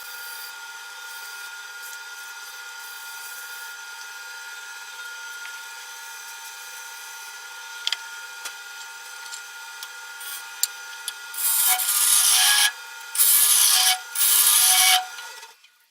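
Wood lathe running with a steady motor hum made of several fixed pitches. About three quarters of the way through, a tool is pressed three times in loud, rough passes against the spinning wooden bowl, and the sound drops away suddenly right at the end.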